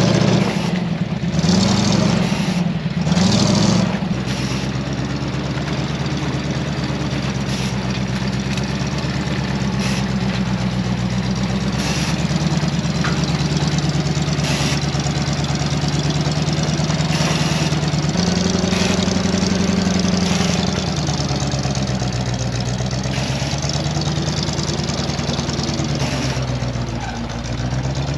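GAZ-66 truck's engine running under load as the truck crawls through bog mud on arch tyres, its revs rising and falling. Three loud noisy bursts come in the first four seconds.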